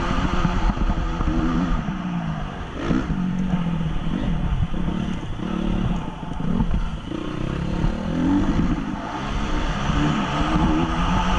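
2014 Honda CRF 250 single-cylinder four-stroke motocross engine, heard from a helmet-mounted camera, revving up and dropping back over and over as the rider accelerates and shifts.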